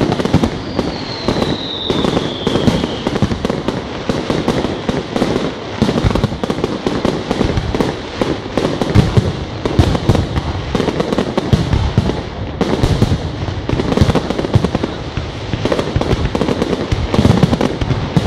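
Aerial fireworks bursting in rapid, continuous succession: a dense run of bangs and crackles, with a falling whistle in the first few seconds.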